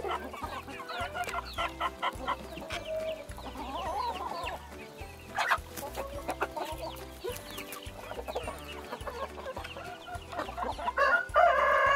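A flock of hens clucking in short, overlapping calls while they feed. Near the end a rooster starts to crow, loud and drawn out.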